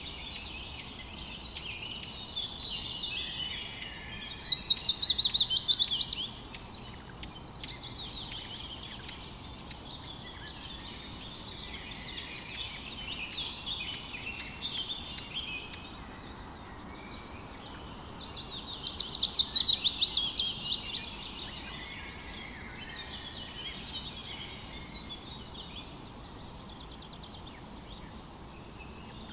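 A dawn chorus of several songbirds chirping and warbling, over a faint steady hiss. Twice, about 4 s in and again near 19 s, one nearby bird sings a loud, fast trill of rapid notes that falls in pitch over about two seconds; these are the loudest sounds.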